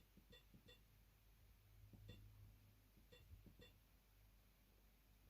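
Faint, short mobile phone keypad beeps as buttons are pressed: six in all, three quick ones, a single one about two seconds in, then two more.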